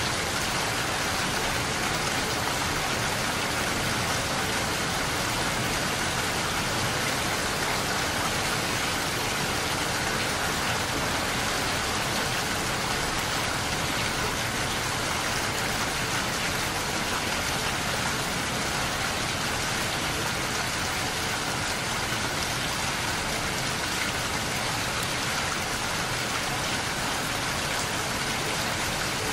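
Steady rain falling: a dense, even hiss with no single drops standing out and no change in strength.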